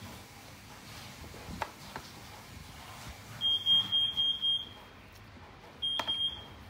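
High-pitched electronic beeping: a quick run of about four beeps partway in, then a shorter pair near the end, with a sharp click among the last beeps.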